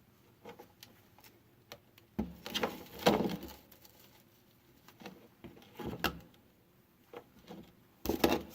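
Workbench handling noises: tools and small parts clicking, knocking and rattling as hands work, with louder bunches of clatter a couple of seconds in, around the middle and near the end.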